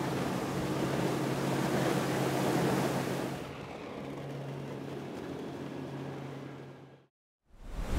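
Mercury 90 four-stroke outboard running steadily on an aluminum boat under way, with the rush of water and wind over it. The hiss drops away about three and a half seconds in, and the engine fades out about seven seconds in. A rushing noise rises just before the end.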